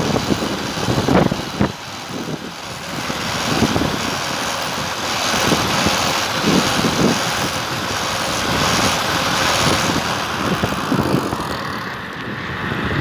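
Steady rush of wind and road noise from riding a homemade electric bicycle powered by a washing-machine BLDC motor, with a few short knocks in the first couple of seconds.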